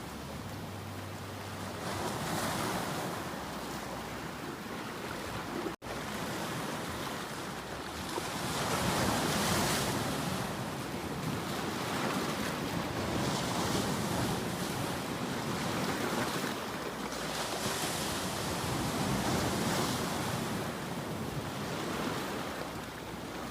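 Ocean waves breaking and washing in, the surf swelling and easing every few seconds. The sound cuts out for a split second about six seconds in.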